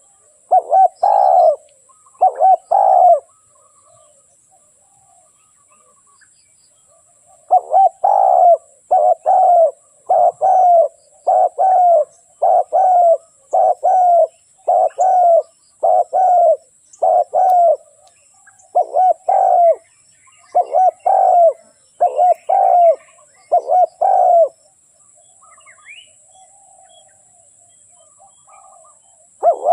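Spotted dove cooing: repeated deep, throaty coo notes about two thirds of a second apart, in bouts broken by pauses of several seconds. It is played as a lure call to get a reluctant caged dove to start calling.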